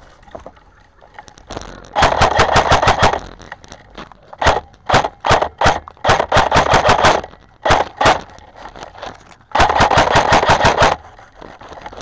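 Airsoft rifle firing in rapid full-auto bursts: about seven bursts of quick clacking shots, the longest lasting about a second, starting about two seconds in and around ten seconds in, with short pauses between them.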